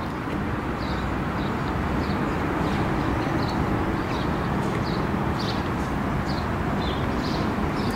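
Škoda Rapid's 1.6 MPI four-cylinder petrol engine idling steadily, heard from outside the car as an even, unchanging running noise.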